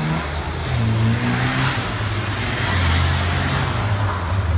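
Classic Minis' small four-cylinder engines running as the cars drive past in a line. The engine note climbs in steps, and a rush of engine and tyre noise swells as the nearest car goes by.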